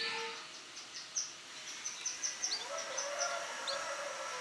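Male yellow canary singing: a run of short, high chirps, about three a second. A lower steady tone comes in a little past halfway.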